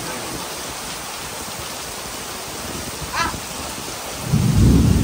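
Steady heavy rain, with a loud low rumble of thunder starting about four seconds in. A brief high chirp comes just before the thunder.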